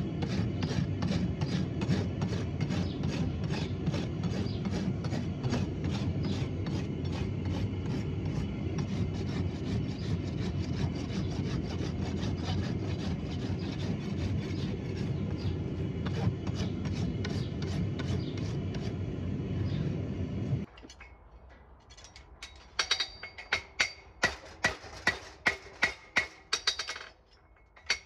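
Farrier's rasp filing a horse's hoof in rapid, even strokes, dressing the hoof after the trim. Near the end, after a short break, a hammer strikes on an anvil in a quick run of ringing blows, about three a second.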